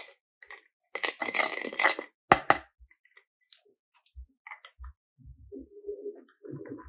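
Crinkling, crunching handling noise: a dense burst of crackle about a second in and a sharp crack just after two seconds, then scattered light clicks and soft knocks.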